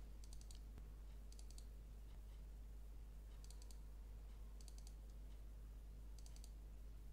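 Faint computer mouse double-clicks, five quick pairs spaced a second or two apart, over a low steady hum.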